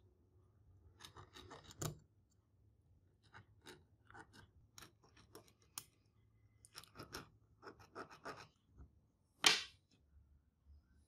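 Pen scratching on bare wood in many short strokes, tracing around a small brass bead to mark its outline on a wooden handle blank. One louder scrape near the end.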